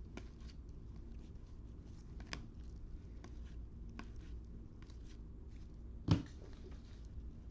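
Football trading cards being handled and slid off a stack one by one, faint light clicks and rustles, with one louder tap about six seconds in.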